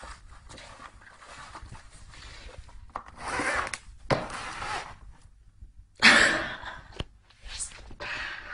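Cardboard box scraping and rustling as a kitten scrambles around inside it: several scratchy bursts with a few sharp knocks, the loudest about six seconds in.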